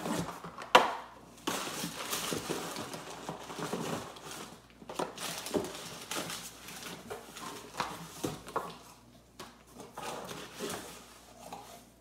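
Rummaging in a cardboard shipping box: rustling packaging and light knocks as boxes are pulled out, with a sharp knock about a second in and scattered quieter rustles toward the end.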